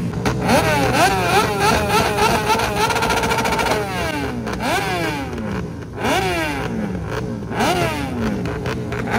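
A motorcycle engine being revved repeatedly. It gives two quick blips, then holds a high rev for about two seconds before letting it drop, then three more sharp blips, each rising fast and dying away.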